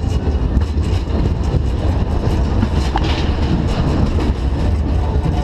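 Roller-coaster car running along its steel track: a steady rumble and rattle of the wheels, with one sharp click about three seconds in.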